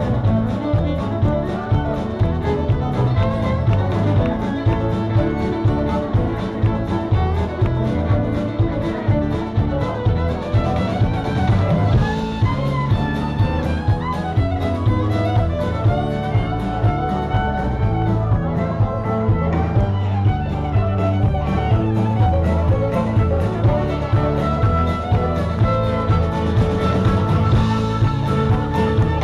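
Live band playing, with a fiddle lead over a bass line and a drum kit keeping a steady beat.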